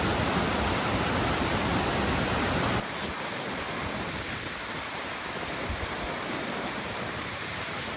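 Waterfall rushing, a steady, even hiss of falling water that drops abruptly to a quieter rush about three seconds in.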